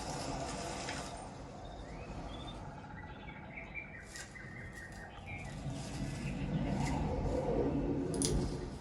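Demo soundtrack nature ambience played over Bowers & Wilkins home-theatre speakers: small birds chirping in short calls over a steady low rumble.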